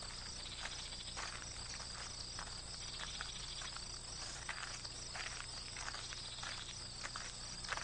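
Footsteps walking on cobblestones, about two steps a second, over a steady chirring of crickets.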